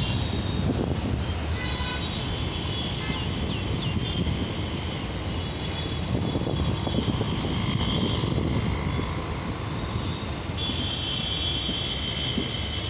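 Indian Railways passenger coach running along the track, heard from its open doorway: a steady rumble of wheels on rails mixed with rushing air, with thin high tones that come and go.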